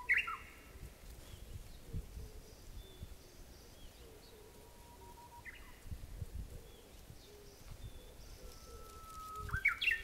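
Japanese bush warbler singing its "hoo-hokekyo" song: a long steady whistle that breaks into a quick warbled flourish, heard at the very start, about halfway and again near the end.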